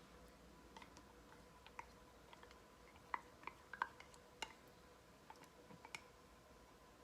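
Faint, scattered clicks and light taps of a utensil against a mixing bowl while sweetened condensed milk is folded into whipped cream, the most of them about three to six seconds in, over a faint steady hum.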